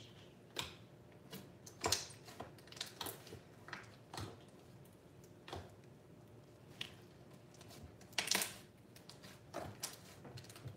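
Fingers poking, pressing and folding slime full of foam beads in a plastic tub: irregular crunchy crackles and pops, the loudest about two seconds in and about eight seconds in.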